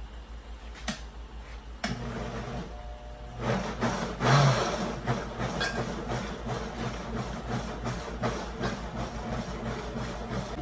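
Countertop blender switched on about two seconds in, its motor running steadily as it purées garlic, spices, onion and water into a seasoning liquid.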